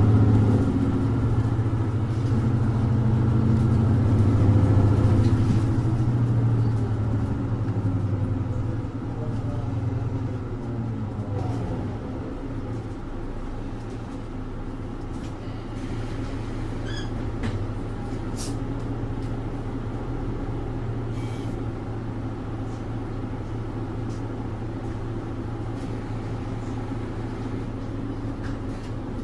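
Mercedes-Benz OM470LA straight-six diesel of a Citaro 2G city bus heard from inside the bus, pulling hard under load for the first few seconds. It then eases off, with a whine rising in pitch from the drivetrain, and settles into a steadier, quieter run.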